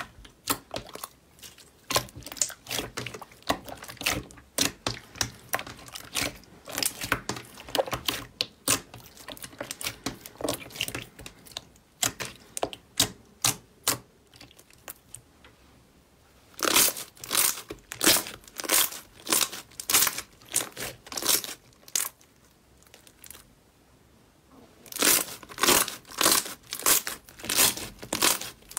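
Hands pressing and kneading glossy green slime, with trapped air popping in rapid, crackly clicks. Later the pops come in louder clusters, roughly one to two a second, with short quiet pauses between them.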